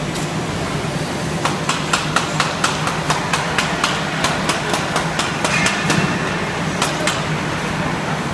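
Series of sharp metallic taps and clicks, about three a second for a few seconds with two more near the end, from hand work on a plate-and-fin radiator core stacked in an assembling fixture, over a steady low machine hum.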